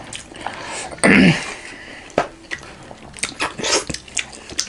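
Close-up eating sounds of juicy steamed chicken momo: wet chewing and mouth smacks with scattered clicks, and one short loud burst about a second in.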